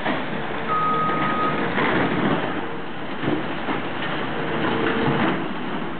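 Caterpillar hydraulic excavator demolishing a building: the engine runs under load while the bucket tears at the structure, and debris crunches and clatters without a break. A single short high beep sounds about a second in.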